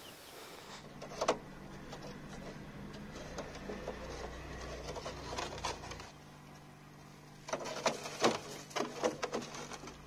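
Refrigerator humming while plastic ice-cream molds are put into its freezer compartment: a knock as the freezer flap is handled, then a cluster of hard plastic clicks and knocks near the end as the molds are set on the freezer shelf.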